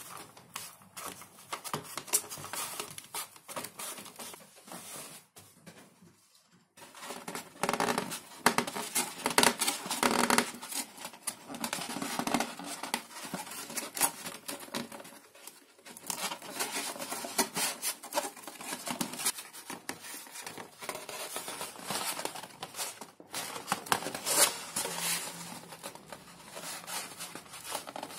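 Thin XPS (Depron) foam sheet being handled by hand: dry scratching, rubbing and crinkling as it is sanded, bent and pressed into shape, in irregular strokes with a brief pause about six seconds in.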